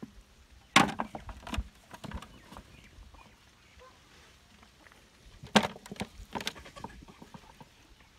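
Raw chickens being set down into a disposable aluminium foil tray: soft slaps of meat and crackles of the thin foil, in two clusters about a second in and about five and a half seconds in.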